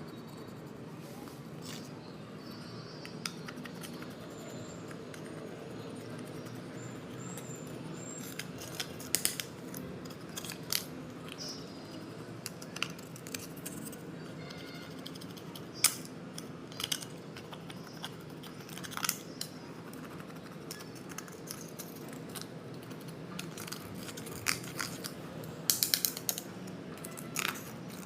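Slime with makeup mixed in being worked by hand: scattered sharp sticky clicks and pops, some in quick clusters, over a steady low background hum.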